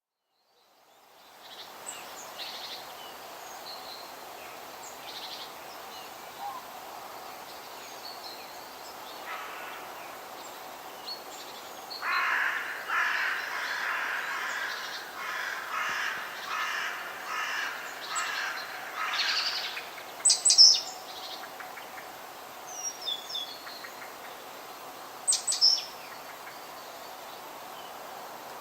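Forest ambience: crows cawing in a long run of repeated calls through the middle, with small birds chirping over a steady background hiss. Two brief, sharp, loud sounds break in near the end.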